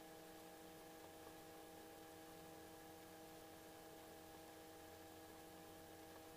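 Near silence: a faint, steady hiss with a few thin, unchanging hum tones.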